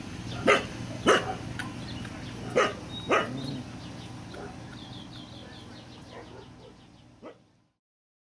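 Long-haired Weimaraner puppies barking: four short, sharp barks in the first three seconds, then one fainter bark before the sound cuts off.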